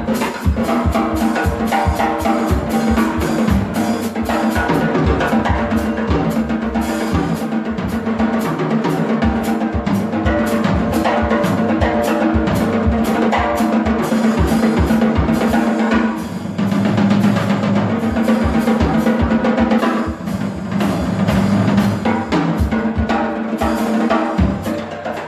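A live band plays an instrumental passage of an Arabic folk-song arrangement, with a busy, prominent drum kit over bass and melody instruments. The drums drop back briefly about two-thirds of the way through, then pick up again.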